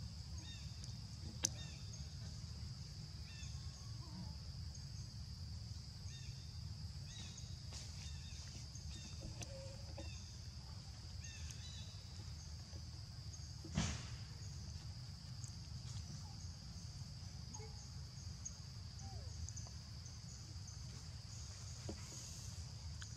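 Outdoor forest ambience: a steady high hum with faint repeated chirps over a low rumble. Two sharp clicks stand out, a small one about a second and a half in and a louder one about 14 seconds in.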